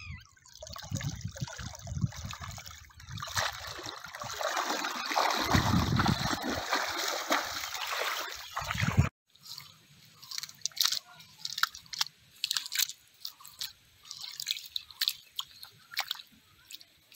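Water sloshing and splashing as a cast net is gathered and carried through shallow water, cutting off abruptly about nine seconds in. After that, quieter scattered wet clicks and rustles of a wet cast net being handled by hand.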